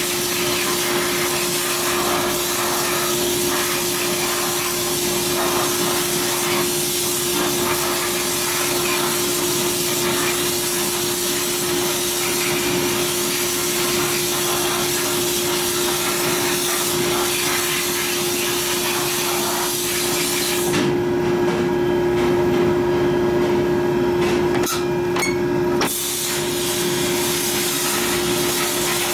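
Bead-blast cabinet in use: a compressed-air nozzle blasts glass beads against an aluminium engine cover in a loud, steady hiss, over a steady hum. The blasting stops for about five seconds near the end, leaving only the hum, then starts again.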